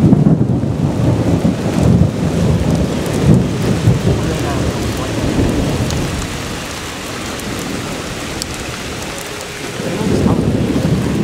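Thunderstorm: heavy rain with a long, deep roll of thunder over the first half that eases off, then the rumble swells again near the end.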